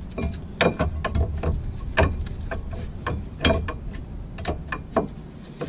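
Irregular metallic clicks and knocks of brake pad backing plates being slotted into a car's front brake caliper carrier, about a dozen sharp taps spread over a few seconds.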